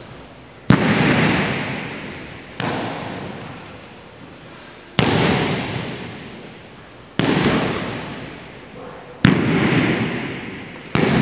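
Aikido breakfalls slapping onto the mats, six sharp impacts about two seconds apart, each trailing off in a long echo through a large sports hall.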